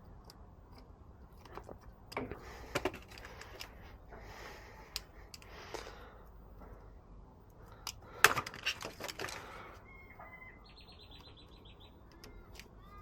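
Handling noises from hands-on work: scattered light clicks and rustles, with a sharper knock about 8 seconds in followed by a second or so of rustling. Faint short chirping tones come near the end.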